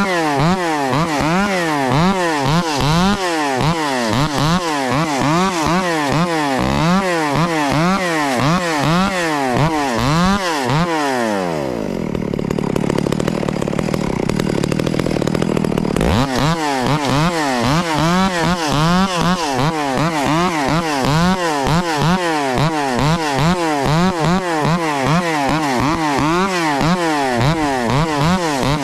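Ported Echo 670 chainsaw with its muffler deleted, revving up and down over and over, about one and a half times a second. About 12 seconds in it drops back to idle for roughly four seconds, then picks up the same repeated revving again.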